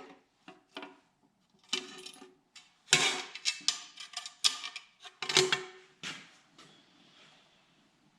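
Metal engine parts clinking and knocking as a part is hung and fitted onto the engine, a run of sharp clanks with the loudest about three and five and a half seconds in.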